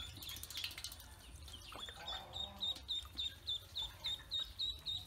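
Ducklings peeping, a fast regular string of short high peeps about four a second that settles in about two seconds in, with one lower call near the same point.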